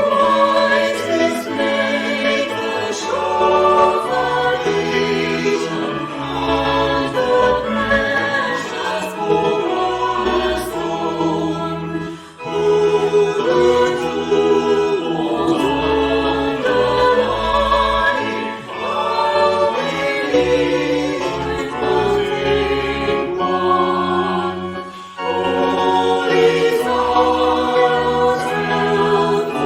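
Choir singing a hymn with a low sustained instrumental accompaniment, the music dipping briefly between phrases.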